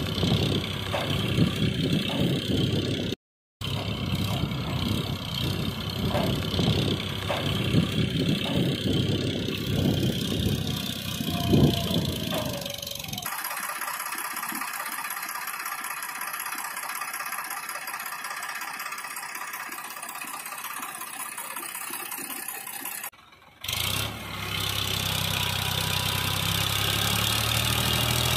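Engine-like running sound: rough and uneven in the first half, thinner in the middle, then a steady low idle near the end. It cuts out briefly twice.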